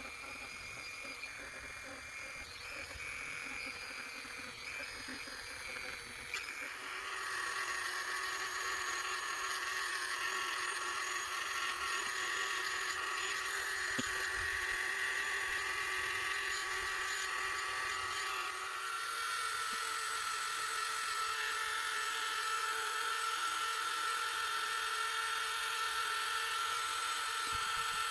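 Electric engraving tool running at high speed while engraving a bone knife handle, a steady whine that drops in pitch and grows louder about 7 seconds in, and shifts pitch again about 19 seconds in.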